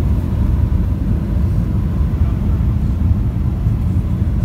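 Steady low rumble of a jet airliner heard from inside the cabin during landing, engines and rushing air, with a faint steady tone above it.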